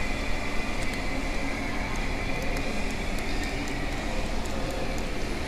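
Steady mechanical hum and hiss of background machinery, with a faint steady whine and a few faint light ticks.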